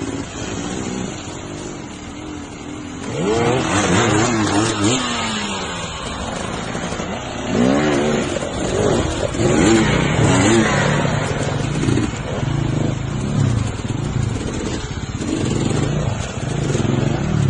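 Enduro dirt bike engines revving in quick up-and-down blips, loudest about three to five seconds in and again from about eight to eleven seconds, over the rush of a rocky stream.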